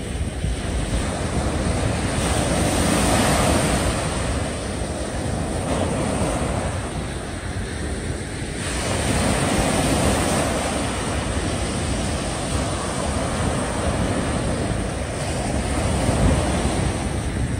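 Small waves breaking and washing up a sandy beach, the surf swelling and ebbing every several seconds, with wind on the microphone.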